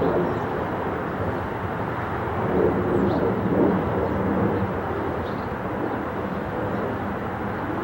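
Jet engines of a Boeing 777 airliner heard from the ground as a steady, wavering rumble.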